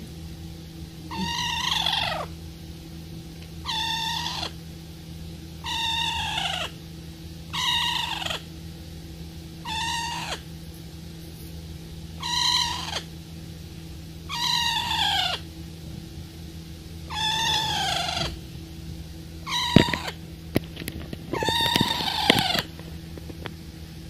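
A pet parrot calling over and over, a drawn-out call that falls in pitch, about a second long and roughly every two seconds. Near the end come a few sharp clicks.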